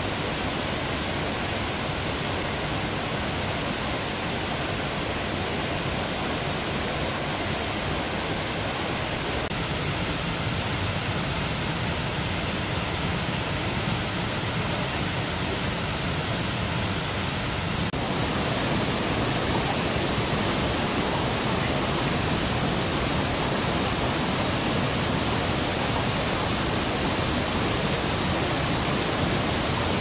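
Steady rush of water from a waterfall and a rocky stream's rapids, an even hiss without breaks. About eighteen seconds in it changes abruptly to a slightly louder, fuller rush.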